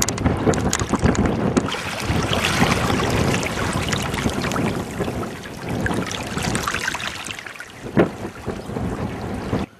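Loud rushing wind buffeting the microphone, mixed with water washing against rocks, with one sharp thump about eight seconds in; the noise cuts off abruptly near the end.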